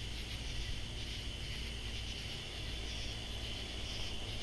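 A steady night chorus of katydids, a continuous high buzz, over a low steady hum.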